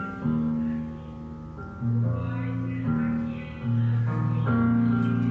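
Instrumental music: slow held notes and chords, each entering sharply and giving way to the next every second or so.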